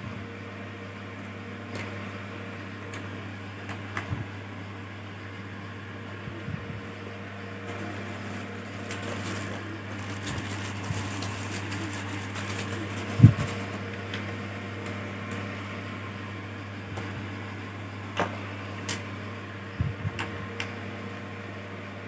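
Screwdriver undoing the screws on the plastic underside of a laptop: scattered small clicks and light knocks, with one sharper knock about 13 seconds in, over a steady low hum.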